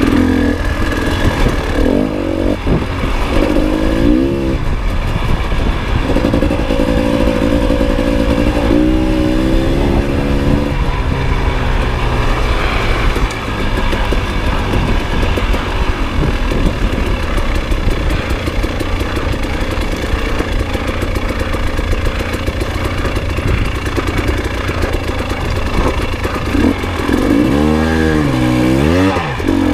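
300 dirt bike engine being ridden, revving up and falling back over and over as the throttle is worked, heard from the rider's seat.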